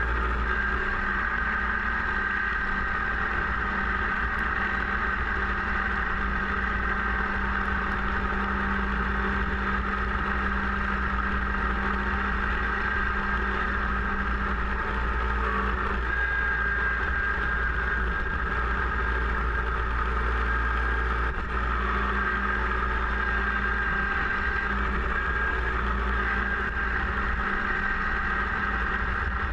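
Kubota BX sub-compact tractor's three-cylinder diesel engine running steadily while it drives a front-mounted snowblower through heavy snow, with a steady high whine over the low engine rumble.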